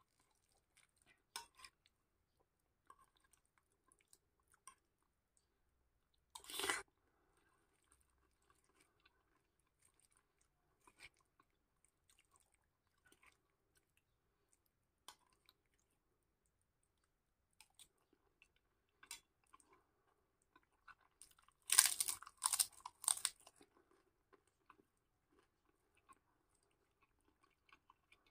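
Close-up chewing of kupat lengko and fried fritters in peanut sauce, mostly faint with light crunches. A louder short burst comes about six and a half seconds in, and a run of several louder sharp noises around twenty-two seconds in.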